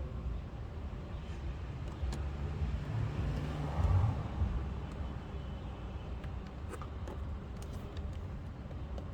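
Steady low rumble of vehicle noise, louder for a moment about four seconds in, with a few faint light clicks.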